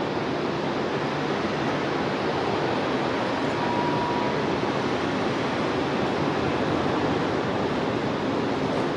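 Steady rushing jet noise from a landing Airbus A330-343's Rolls-Royce Trent 700 engines, with no distinct thump or bang. A faint short whistle comes about four seconds in.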